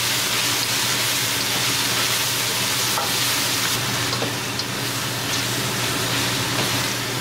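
Onions, peas, corn and spices frying over high heat in a stainless steel sauté pan, a steady sizzle, while a slotted spatula stirs them with a few light scrapes against the pan.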